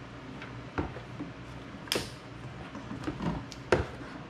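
A few sharp, separate clicks and knocks, about four in four seconds, from parts and tools being handled, over a low steady hum.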